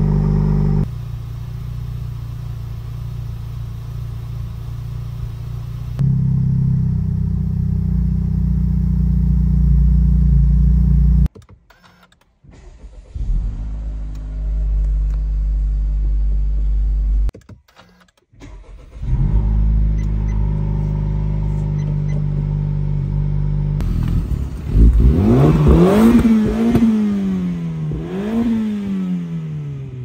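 Honda Civic Type R FL5's turbocharged 2.0-litre four-cylinder idling after cold starts through a resonator-deleted, straight-piped exhaust, in several short clips from behind the car and from inside the cabin. Near the end the engine is revved twice, climbing and falling back each time.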